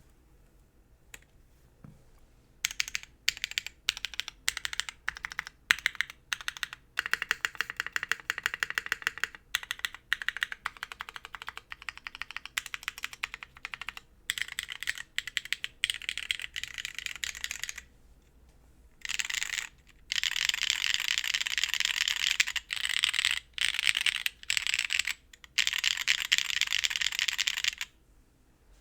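Typing on a Geonworks F1-8X V2 mechanical keyboard with Cherry MX2A Black linear switches fitted with Kailh Black stems, DCS-profile keycaps and an aluminium plate. It starts with single keystrokes a couple of seconds in and builds into fast runs of typing, the densest near the end.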